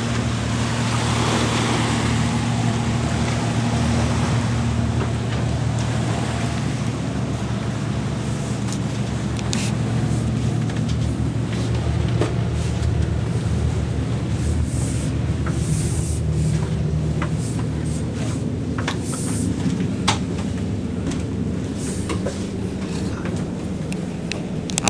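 Steady low hum of the schooner's onboard machinery running, with scattered light knocks and clicks.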